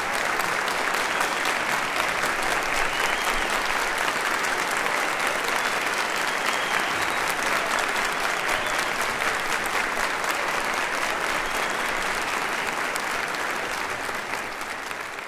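Concert audience applauding steadily after an orchestral performance, the clapping fading out near the end.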